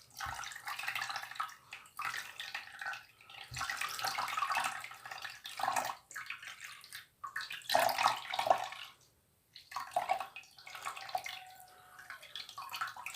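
Tap water running and splashing over a smartphone as it is rinsed, breaking off and starting again several times.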